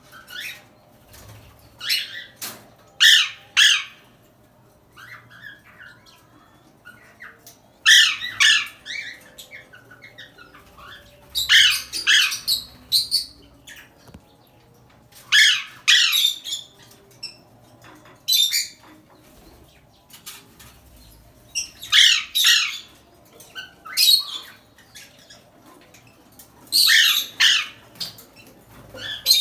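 Parrot calling loudly and harshly, in short bursts of squawks every few seconds.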